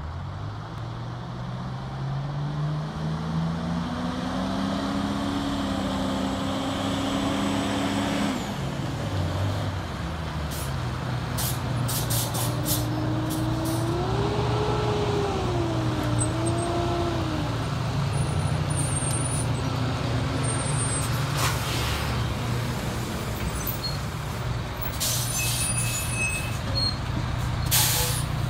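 Fire trucks' diesel engines running at the roadside. One engine's pitch climbs steadily for about eight seconds, then drops off sharply, and later it revs up and down. Short hisses of truck air brakes come several times in the second half.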